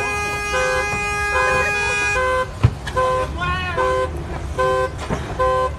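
Car alarm sounding a horn-like beep that pulses on and off about once every 0.7 seconds, over a second steady tone that cuts off about two seconds in. A single sharp bang near the middle, and voices shouting.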